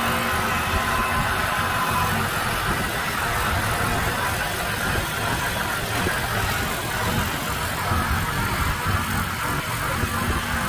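Small gasoline engine of a walk-behind shed mover running steadily.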